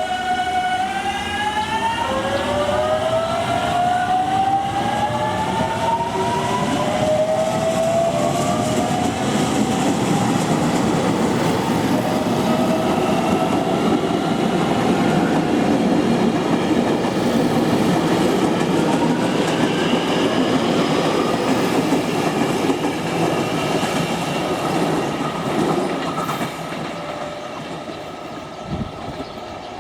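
Electric train pulling away from the platform: its motor inverter whine rises in pitch in overlapping steps while the wheels rumble and clack over rail joints. It grows louder, then fades toward the end as the train leaves.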